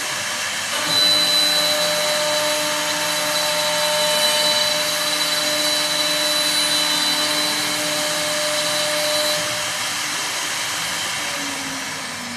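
1512 three-spindle CNC wood turning lathe cutting three spinning wooden blanks into stair spindles: a steady hiss of the cutters shaving wood over a steady motor whine. The cutting gets louder about a second in and eases off near the end.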